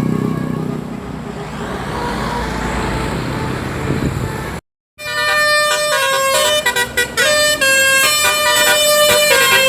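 A vehicle's engine and road noise, cut off suddenly about halfway through. Then a telolet bus horn, a set of multi-tone horns sounding several notes together, plays a stepped melody with short breaks.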